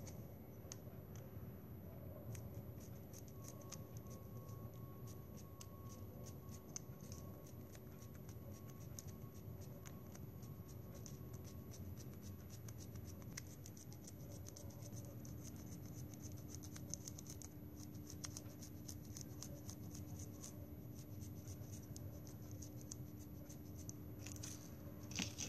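Scissors snipping a plastic drinking straw lengthwise into thin strips: many small, faint snips in quick irregular runs.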